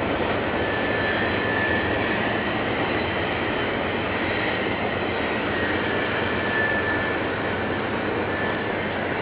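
Canadian National freight train rolling past: a steady rumble of wheels on rail, with a few faint, brief high squeals.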